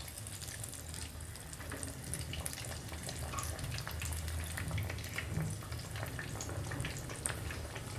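Batter-coated surmai (kingfish) pieces shallow-frying in hot oil, a steady sizzle full of small crackles and pops, while the pieces are turned over in the pan.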